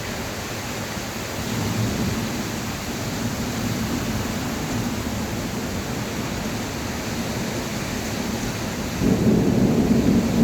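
Heavy rain falling steadily, with a low rumble that swells louder about nine seconds in.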